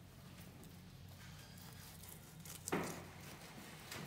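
A kitchen knife slicing through boiled beef tongue strikes the cutting board once about two-thirds of the way in, with a lighter tap near the end.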